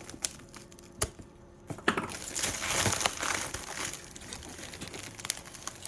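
Packing tape and cardboard boxes being pulled and torn apart: a few light clicks and knocks, then from about two seconds in a long stretch of ripping and crinkling.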